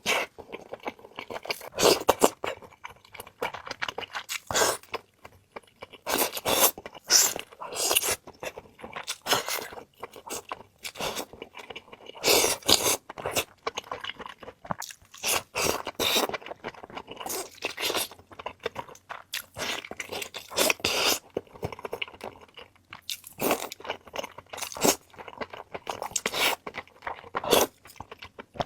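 Close-up crunchy eating: repeated bites and crunching chews of crisp food, coming in bursts with short pauses between them.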